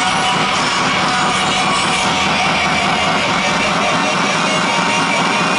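Scania V8 pulling truck's engine running loud and steady, with a quick pulsing beat coming in from about two seconds in.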